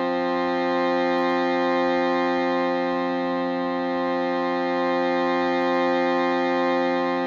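Shruti box and crystal singing bowl holding a steady, unbroken drone chord rich in overtones, swelling and easing gently in loudness.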